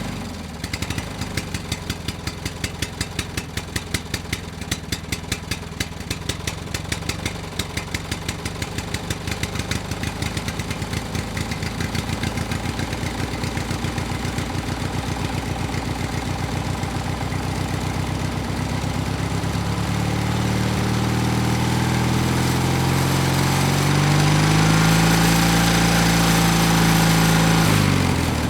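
Small two-stroke engine running with an even putter of firing pulses, then gradually revved higher over the second half, held at high revs with small rises and falls in pitch, and dropping back right at the end.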